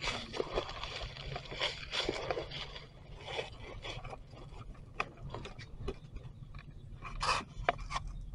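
Dry leaf litter rustling and crackling, densest in the first three seconds, with a louder crackle about seven seconds in.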